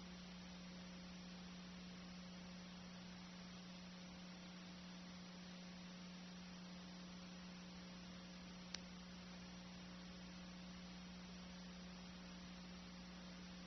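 Near silence: a steady low electrical hum under an even hiss, the bare noise of the recording with no game sound. A single faint click about nine seconds in.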